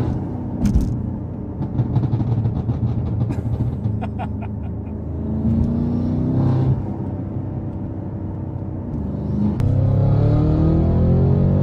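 BMW M5 F90's twin-turbo V8 breathing through catless downpipes and an FI exhaust, accelerating with the engine note rising in pitch. About two to four seconds in comes a run of sharp crackles. Near the end the engine pulls harder and louder.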